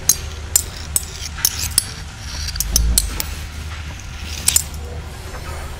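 Sound effects for an animated metal ball-run machine: a string of sharp metallic clicks and clinks at uneven intervals over a steady low hum, with a dull low thud about three seconds in.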